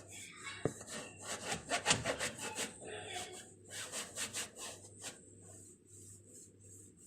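Rapid back-and-forth scrubbing strokes while cleaning a microwave oven, several a second, easing off about five seconds in.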